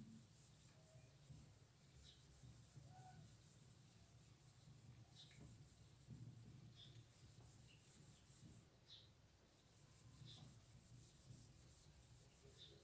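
Faint rubbing of a hand-held eraser wiped back and forth across a whiteboard, clearing off marker writing.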